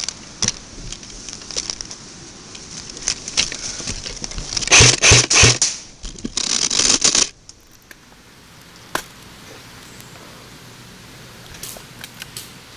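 Rustling and scraping close to the microphone, with a few loud brushing strokes about five seconds in and a longer scrape just after. Then it turns quieter, with a few sharp clicks.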